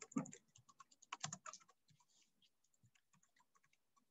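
Typing on a computer keyboard: a quick run of key presses in the first second and a half, then scattered, fainter single keystrokes.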